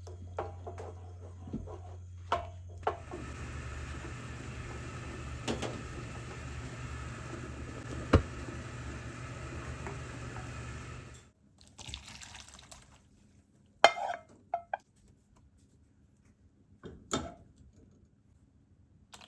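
Water running steadily from a kitchen tap for about eight seconds, then shut off abruptly. A few sharp clicks and knocks of kitchen utensils come before and after it.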